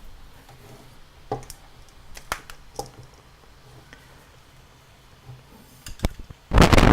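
Handling noise from a camera being moved and repositioned, picked up by its own built-in microphone: scattered clicks and knocks, then a loud scrape of something rubbing against the camera near the end.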